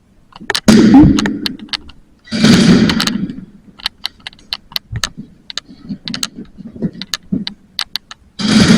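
Airsoft skirmish: scattered sharp cracks and clicks of gas pistol shots and BB hits, with three longer rushes of noise about a second, two and a half seconds and eight and a half seconds in.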